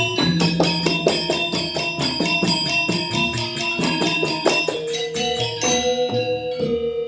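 Balinese Semar Pagulingan gamelan playing: a fast run of bronze metallophone and cymbal strikes over ringing pitched tones. After about five seconds the strikes thin out beneath one long held tone.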